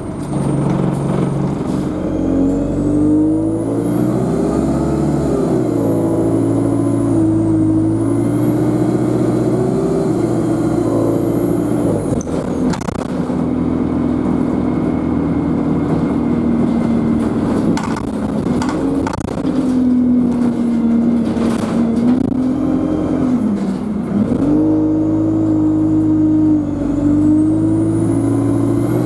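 Diesel engine of a Euro 5 Alexander Dennis Enviro200 single-deck bus under way, its note rising and falling with the throttle and gear changes. Over it a high-pitched turbocharger whine climbs, dips and climbs again, cuts out about twelve seconds in as the engine eases off, and rises again near the end.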